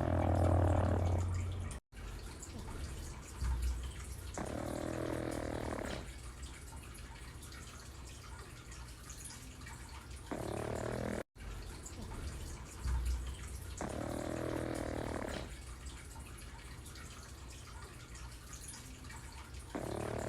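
Pug snoring in slow, regular breaths: about five rasping snores, each a second or so long, coming roughly every five seconds.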